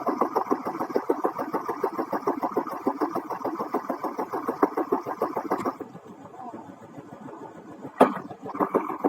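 An engine running with a rapid, even pulse. It drops away about six seconds in, and a sharp click near the end comes just before the pulsing starts again.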